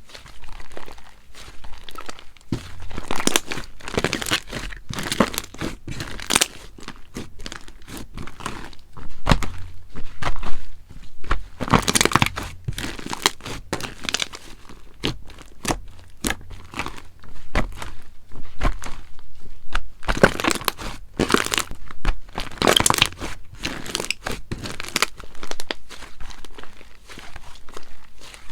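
Slime being squeezed, stretched and pressed by hand, giving a dense, irregular run of sticky crackles and pops, with louder clusters every several seconds.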